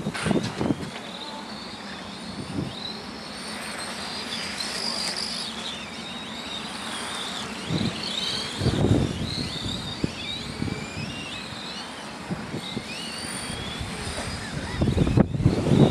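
Radio-controlled Formula 1 model cars racing round a corner, their motors whining high and rising and falling in pitch as they brake and accelerate. Louder rushing swells come as cars pass close, about half a second in, around nine seconds, and near the end.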